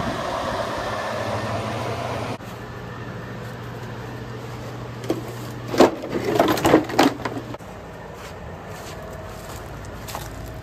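Large electric floor fan running with a steady hum. It cuts off abruptly a little over two seconds in. About five seconds in, a run of sharp knocks and clatter of scrap plywood pieces follows.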